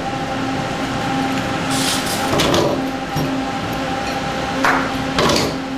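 Steady hum of a data center's servers and air-conditioning units, with a few short knocks and clatters about two seconds in and near the end.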